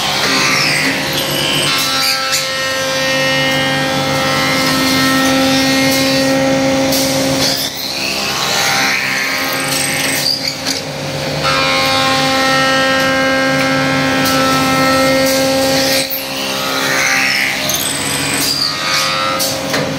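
Wooden-spoon production machines running: a steady motor hum with a held tone, mixed with clicks and rasping bursts of wood being machined. The hum dips about every eight seconds as a louder rasp comes through.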